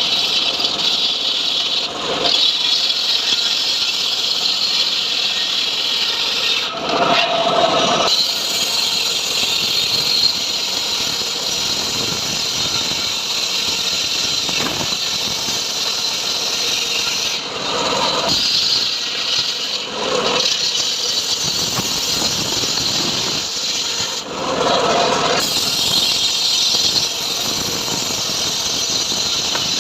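Homemade band sawmill cutting a sengon log: a steady, loud sawing noise from the blade running through the wood. Four brief dips break the cut, where a lower machine tone comes through.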